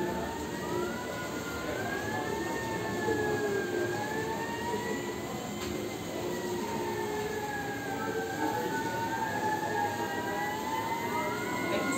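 Emergency-vehicle sirens wailing, several overlapping and each rising and falling slowly over a few seconds, over a steady background hum.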